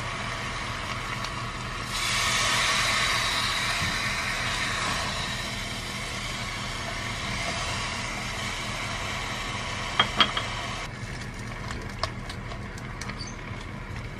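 Chicken pieces and vegetables sizzling as they are stir-fried in a pot. The sizzle grows louder about two seconds in and then slowly eases. A spatula knocks sharply against the pot twice about ten seconds in, with a few light scrapes and ticks after.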